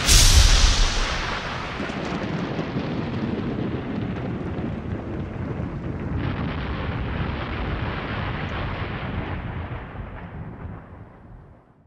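Sound-designed boom for a title logo: a heavy impact hits at the start with a deep rumble, then a long rumbling, hissing tail. About six seconds in a fresh hissing layer swells in, and the whole sound fades out near the end.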